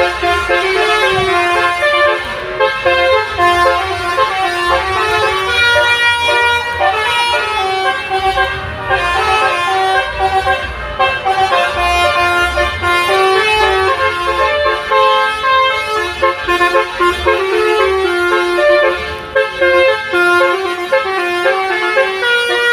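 Bus 'telolet' multi-tone air horn playing a continuous melody, its notes stepping from pitch to pitch every fraction of a second, over a low rumble.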